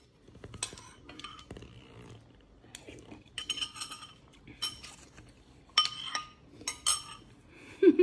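Spoon or cutlery clinking against a ceramic soup bowl: a series of separate sharp clinks, each ringing briefly. A brief voice sound comes right at the end.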